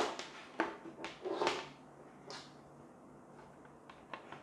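A power cord with a plastic inline switch handled on a tabletop: a sharp knock at the start, a few lighter knocks and a brief rubbing swish of cable sliding over the surface in the next second and a half, then soft small clicks near the end.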